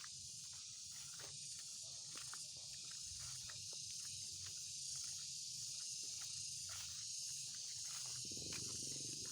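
A steady, high-pitched chorus of insects droning without a break, growing slightly louder, with scattered light footstep clicks.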